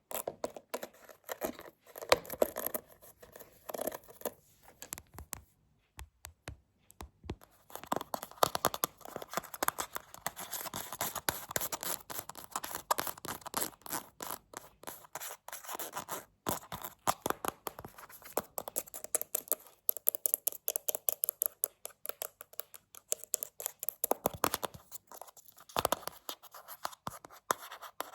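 Rapid close-up tapping and scratching, dense quick strokes that pause briefly about six seconds in.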